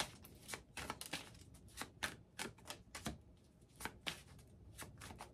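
A deck of tarot cards being shuffled: a quiet run of quick, light, irregular clicks.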